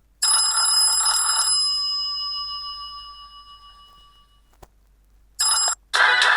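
Fly FS458 Stratus 7 mobile phone playing a bell-like ringtone: a ringing chime that fades away over about four seconds. A click follows, then a short burst and the start of the next ringtone near the end.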